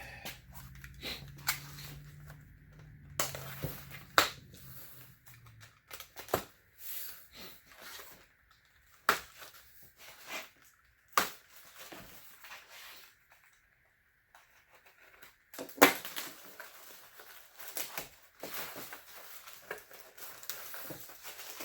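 A cardboard box of packaged parts being opened and unpacked: cardboard and packing tearing and crinkling, broken up by scattered sharp knocks and clatters as pieces are handled, the loudest about four seconds in and near the middle. A low hum sounds for the first few seconds.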